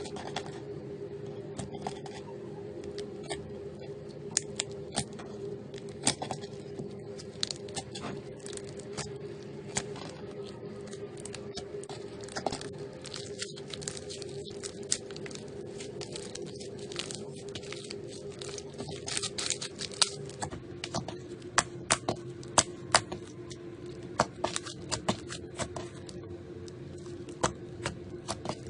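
Slime being squeezed and pressed by hand, with many sharp crackles and pops that come thicker in the second half, over a steady low hum.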